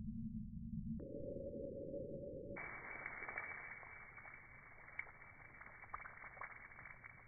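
Splash of a burst water balloon and rain on wet patio slabs, heard slowed down. It sounds deep and dull at first, brightens suddenly about a second in and again about two and a half seconds in, then fades into a light hiss of rain with scattered drip ticks.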